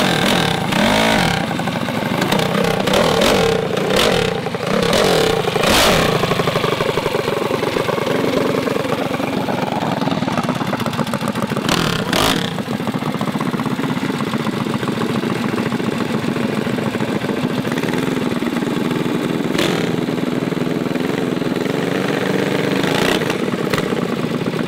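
Small minibike engines running hard at high revs, pitch rising and falling as they rev.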